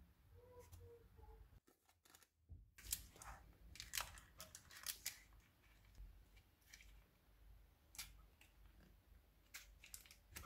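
Faint clicks and crackles of a plastic scraper pressing chopped pistachios and almonds into soft milk barfi, rustling the butter paper in the tray. The clicks cluster about three to five seconds in, with a few more scattered later.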